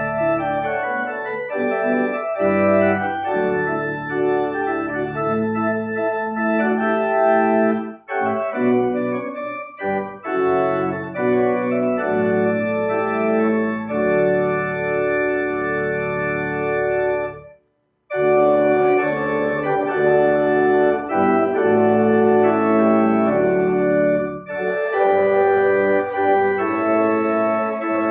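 Church organ playing a hymn in sustained, held chords, stopping completely for a moment about two-thirds of the way through before starting again.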